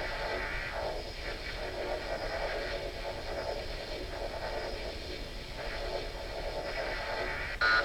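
Proton pack sound kit playing the continuous crackling proton-stream firing effect. Near the end a rapid repeating warning beep, about three a second, cuts in: the pack's overheat warning after firing long enough.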